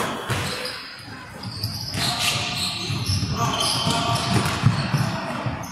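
Basketball game in play: a ball bouncing and players' feet thudding on the court, with players' calls, echoing in a large hall.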